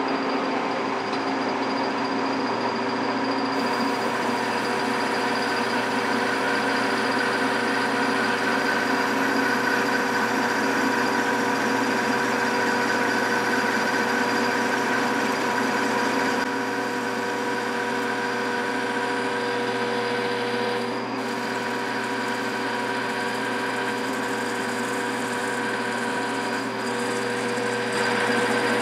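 Metal lathe running under power with a steady gear whine, and a hiss of cutting as a parting tool is fed into the stock to cut off a washer. The cutting hiss comes in a few seconds in, the sound eases a little past the middle and rises again near the end.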